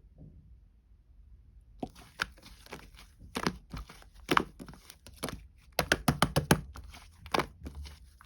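Pearl slime being pressed and folded by hand, giving a run of sharp wet clicks and pops. It starts about two seconds in, with a quick cluster of pops a little past the middle.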